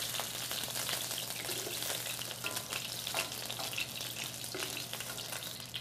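Vegetarian meat chunks frying in hot oil in a wok: a steady, dense sizzle and crackle.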